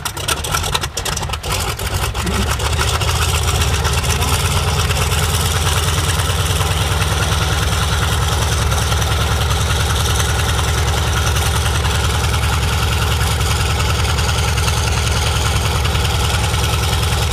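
Antonov An-2's nine-cylinder Shvetsov ASh-62 radial engine catching on a cold start. It fires unevenly for the first couple of seconds, then settles into a steady idle with the propeller turning.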